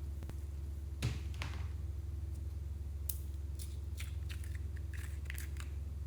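Clear slime being squished and stretched by hand, giving a soft thump about a second in, then a run of small sticky clicks and pops. A steady low hum runs underneath.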